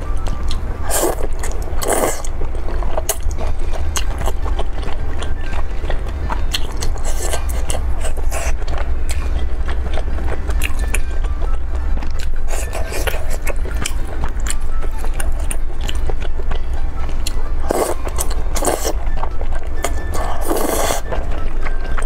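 Close-miked eating sounds of thick noodles in spicy sauce: a few short, loud slurps, about a second in, again near 2 s, and three more in the second half, with chewing in between.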